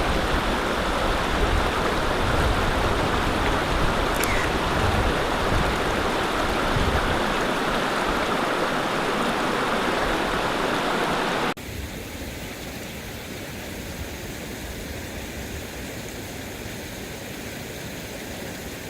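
Steady rushing noise, like running water or wind, with an uneven low rumble; about eleven and a half seconds in it drops suddenly to a much quieter hiss.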